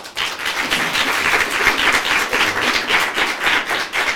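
Audience applauding, breaking out all at once as a dense patter of many hands clapping.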